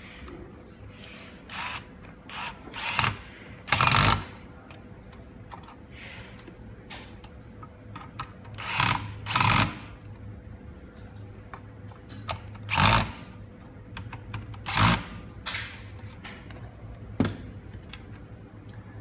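Electric screwdriver driving screws into a metal light-fixture housing in short runs, about ten brief bursts spread out with pauses between them.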